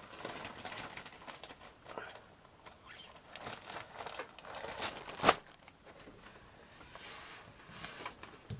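Paper craft kits and their packets being handled, rustling and crinkling, with small clicks and one sharp tap about five seconds in.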